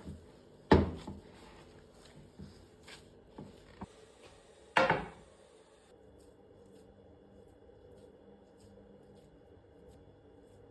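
Kitchen work sounds: a sharp knock about a second in and a heavier clatter near the middle, with a few light clicks between, then only quiet room tone.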